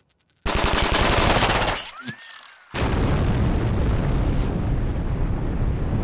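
Film-style sound effects: a rapid burst of machine-gun fire lasting about a second and a half, a short whistle that rises and falls, then a big explosion whose rumble carries on.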